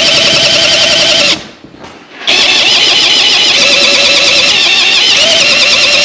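A power cutting tool running loudly with a wavering whine as it cuts, stopping for about a second and then starting again.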